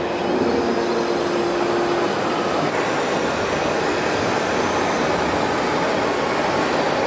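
Steady din of a busy hall with radio-controlled model tractors driving, and a steady hum that stops about two seconds in.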